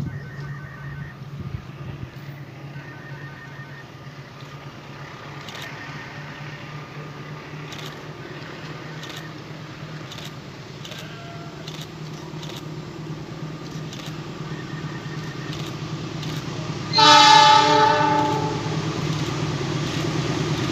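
Diesel-electric locomotive (CC206, a GE C20EMP) sounding one loud horn blast of about a second and a half as it approaches. Its running rumble grows louder near the end.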